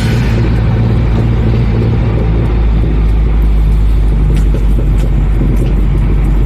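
Car engine running steadily, a deep even hum with no change in pitch.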